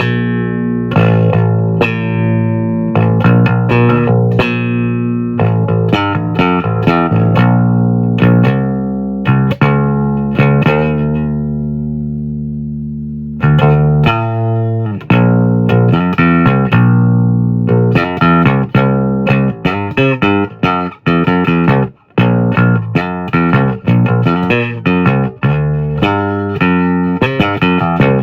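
Instrumental music of plucked guitar notes over a bass line. About halfway through, a held chord dies away, then the playing picks up again with quicker notes.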